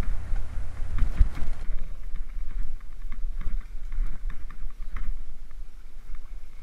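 Wind rumbling on the microphone, with scattered clicks and knocks throughout.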